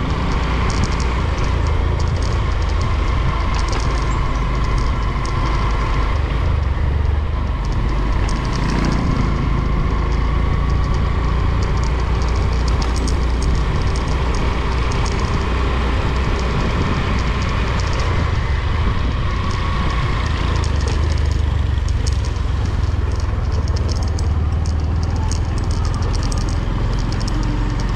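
A vehicle being driven along a road: a steady low rumble with a thin, wavering engine whine, and frequent small rattles and clicks throughout.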